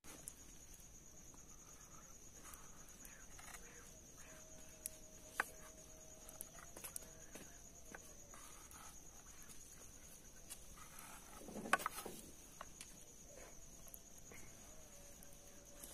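Faint clicks and light scrapes of a kitchen knife against a ceramic plate as the crusts are cut off slices of bread, with the loudest clatter about three quarters of the way through. A steady high insect trill runs behind it.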